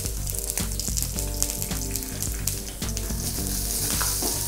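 Soya chunks and onions sizzling in hot oil in an aluminium kadai. A spatula scrapes and clicks against the pan as they are stirred. A background tune plays underneath.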